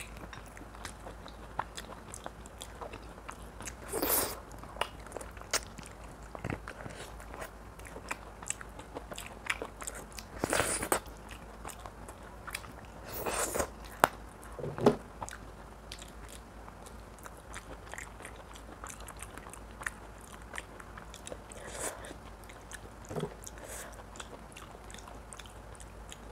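Close-miked chewing and biting while eating mutton curry with rice: many small wet mouth clicks, with a few louder, longer bites spread through.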